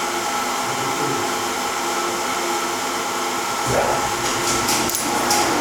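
Steady whir of an electric motor. About two-thirds of the way through, a lower rumble joins it with a short rising sweep.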